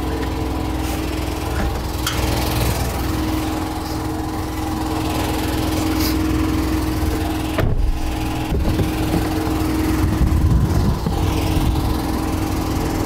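An engine running steadily at an even pitch, with two sharp knocks a second apart about eight seconds in.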